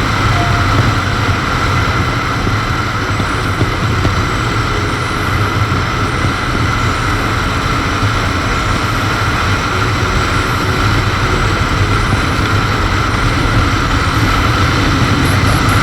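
Motorcycle engine running steadily while riding, with a continuous even noise and no change in pace.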